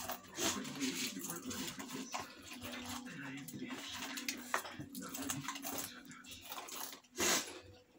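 Spicy chips being eaten: crinkling chip bags and crunching, with huffing breaths and a low wavering whimpering hum from the heat. A short loud rush of breath comes near the end.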